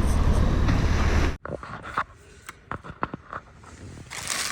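Wind buffeting the microphone, cutting off abruptly about a second and a half in; then quieter scattered clicks and a short rustle of handling noise near the end.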